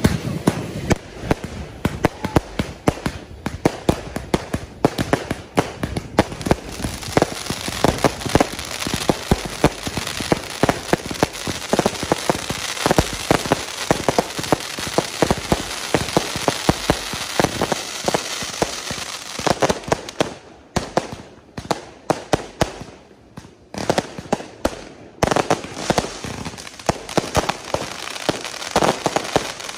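Fireworks going off in a dense barrage: rapid bangs and pops in quick succession, with a short lull about twenty seconds in before the bangs pick up again.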